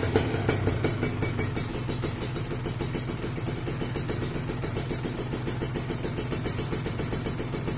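Kawasaki Ninja RR 150's single-cylinder two-stroke engine idling steadily through an Arrow silencer on a CMS big-volume stainless expansion chamber, with a rapid, even pulse.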